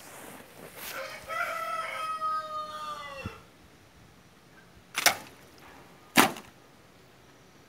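A rooster crowing: one long crow that drops in pitch at the end. About two seconds later come two sharp cracks a little over a second apart, the loudest sounds here.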